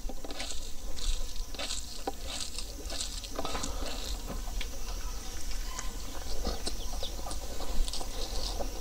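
Close-up eating sounds of a man eating pork ribs and rice by hand: chewing and lip smacking, heard as an irregular run of small clicks and ticks.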